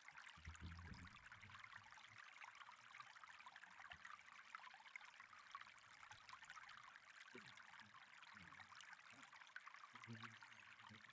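Faint steady rush of running water.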